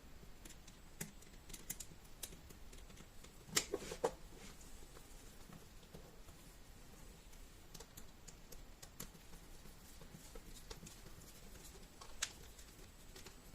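Light clicks and taps of a plastic rewireable plug and its cable being handled and fitted together, with a couple of sharper clicks about three and a half seconds in and again near the end.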